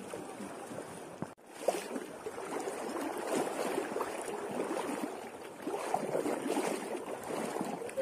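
Shallow sea water sloshing and lapping, with irregular small splashes. The sound drops out briefly about a second and a half in.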